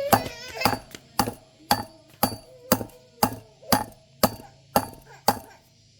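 A run of about a dozen sharp, evenly spaced blows, roughly two a second, each with a short ring.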